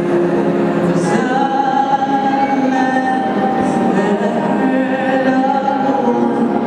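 Slow music with long held sung notes.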